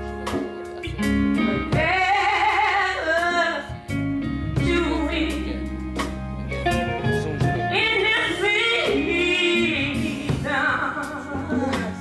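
Live gospel music: a lead singer with wide vibrato over a band with bass, guitar and drums.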